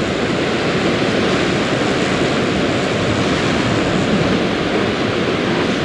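Sea surf breaking and washing against a rocky shore, a steady rush of water.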